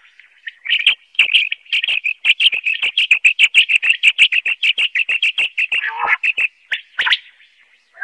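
Common quail calling: a fast run of short, sharp, high notes, about eight a second, breaking off near the end into a lower, rougher note and a couple of single calls.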